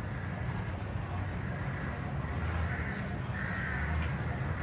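Birds calling repeatedly in harsh calls, the loudest about three and a half seconds in, over a steady low rumble.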